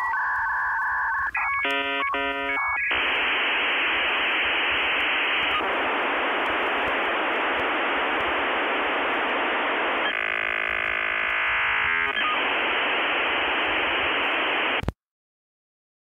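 Electronic transmission sound: a steady tone, then a second or so of rapidly switching warbling tones, then a long hiss with a brief buzzing stretch in the middle, cutting off suddenly near the end.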